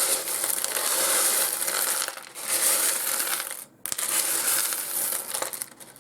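Small pieces of rough fossil opal rattling and clattering as they are stirred around in a tray, a dense run of small hard clicks. It pauses briefly twice and stops near the end.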